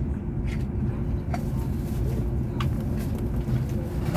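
Steady low rumble of a CR400BF-Z Fuxing high-speed train running at speed, heard inside the passenger cabin, with a few faint clicks.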